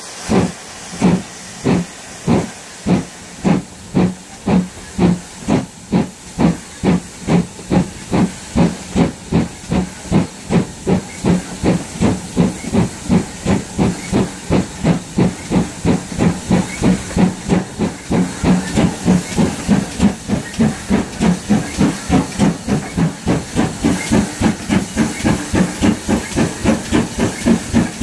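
GWR 56xx class 0-6-2 tank engine's exhaust chuffing as the train pulls away, the beats quickening steadily as it gathers speed, with a steady hiss of escaping steam alongside.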